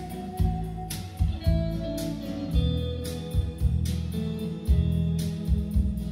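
Guitar-led music with bass and sharp percussive hits, played back from a cassette on an A&D (Akai) cassette deck through hi-fi loudspeakers.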